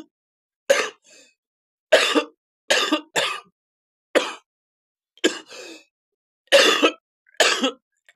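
A person coughing: a run of about eight short coughs, roughly one a second, each with a voiced edge and some fainter throat noise after a couple of them.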